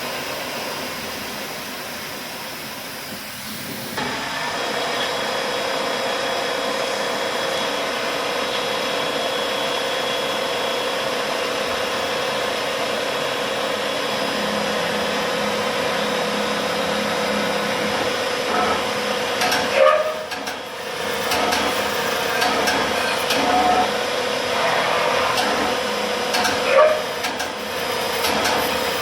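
Retrofitted Pratt & Whitney Tapemate C CNC mill running through its program: a steady hiss, joined about four seconds in by a steady whine that holds on. A few short, louder clatters come near the two-thirds mark and again near the end.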